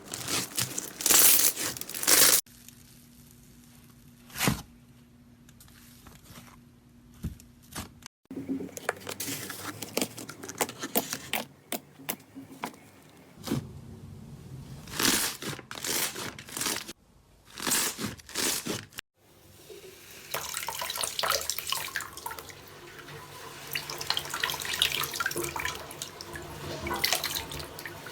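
Slime being squished and poked, giving wet crackling, clicking and popping sounds, in several short clips cut together; one clip is much quieter, with only a few single clicks.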